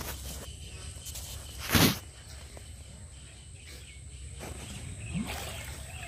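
Water splashing briefly and loudly about two seconds in, then more softly near the end, over a steady high insect drone.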